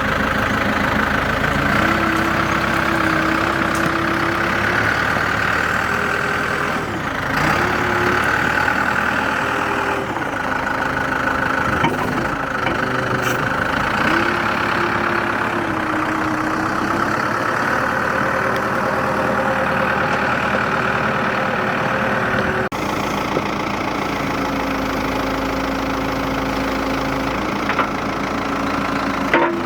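New Holland LB110 backhoe loader's diesel engine running at idle, with a pitched tone that rises and dips several times in the first half as the revs or load change. The sound changes abruptly about three-quarters of the way through.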